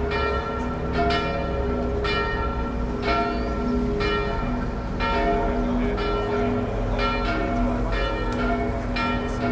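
Church bells ringing a peal: several bells of different pitch struck in turn, about two strikes a second, each note ringing on under the next.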